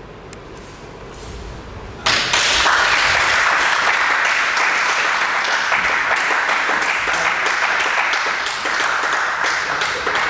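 A small audience applauding: the clapping breaks out suddenly about two seconds in, holds steady, and begins to thin out near the end.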